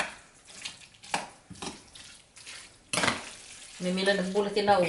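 Metal spoon scraping and clinking against a large ceramic bowl as a moist mixture is stirred, in a series of short separate strokes. A voice starts talking near the end.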